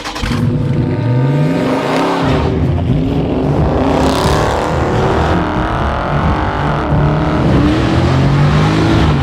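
Pontiac G8 GT's V8 engine revving through its exhaust, loud, the engine note climbing and dropping back several times.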